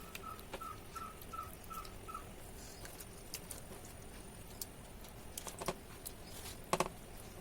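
Soft patting, squishing and light clicks of hands spreading wet masala paste over pieces of fish, with a few louder clicks near the end. In the first two seconds a bird gives six short, high chirps at an even pace.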